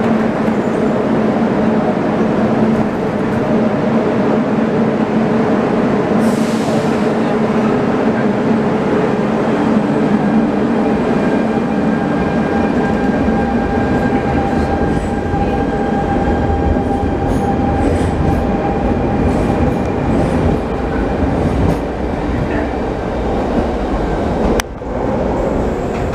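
Barcelona Metro Line 1 train pulling out of a station: a short hiss about six seconds in, then a steady motor whine over a low wheel-on-rail rumble that grows as the train gathers speed. Near the end the sound cuts suddenly to a quieter platform with a train approaching in the tunnel.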